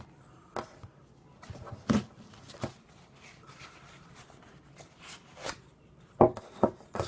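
A handful of short knocks and rustles, spaced apart with quiet between, as the pieces of a cut-open bowling pin are pulled apart and handled: its red outer shell and the cardboard tube inside.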